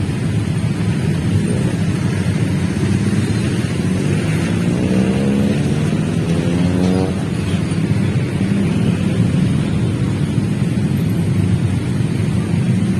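Steady low rumble of a container freight train running away down the track. Between about four and seven seconds in, an engine revs up with rising pitch.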